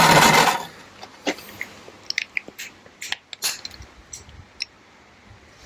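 A brief loud rush of noise at the start, then scattered light clicks and taps of tools and small engine parts being handled.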